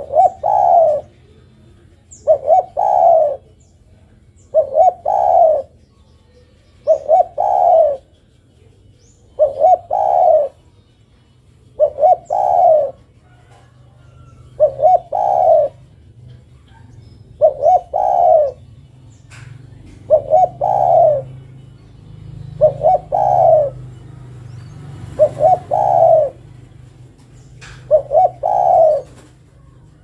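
Spotted dove cooing, a short phrase of two or three notes repeated about every two and a half seconds, around a dozen times. The call is given as a female calling a male. A low hum runs underneath and swells in the middle, and faint high chirps of other small birds come through.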